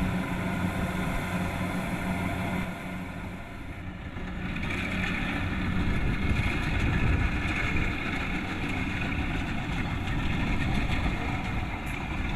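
Kubota DC-70 Plus rice combine harvester running: a steady engine hum that dips about three seconds in, then comes back louder and noisier from about five seconds on.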